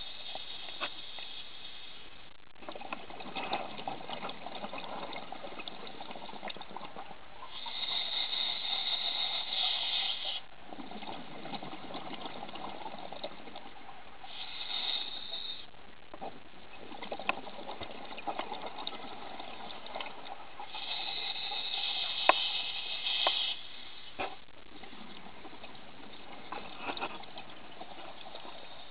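Scuba diver breathing through a regulator underwater: a hissing inhale alternates with a gurgling burst of exhaled bubbles, about four breaths in all. A few sharp clicks fall in the second half.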